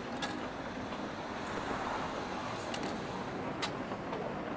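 Steady hiss of rain falling, with a few brief, sharp light clicks scattered through it.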